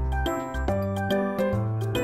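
Background music: a melody over bass notes, a new note about every half second.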